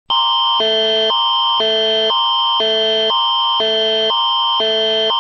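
Canadian Alerting Attention Signal, the emergency alert tone: a steady high tone held under two chords that alternate every half second, a higher pair and a lower pair. It starts abruptly right at the beginning.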